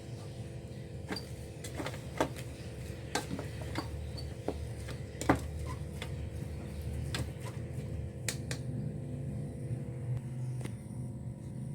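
Utensil clinking and tapping irregularly against kitchenware, a dozen or so sharp clicks with one louder knock about five seconds in, over a steady low hum.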